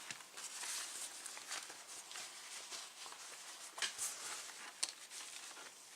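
Faint handling noise of small sewing-kit items: light rustling with scattered small clicks and taps, a few sharper ones about four and five seconds in.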